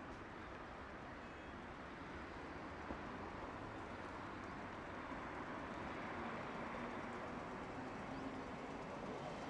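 Steady distant rumble of street traffic that grows slowly louder as a Tosaden streetcar approaches along the line below.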